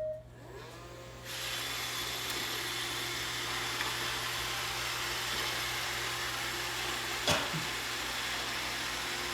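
Roomba robot vacuum starting up and cleaning. A motor whine rises in pitch in the first second, then the vacuum and brush motors run steadily with a loud hiss from about a second in. There is a single sharp knock about seven seconds in. It is running again on a battery revived by jump-charging.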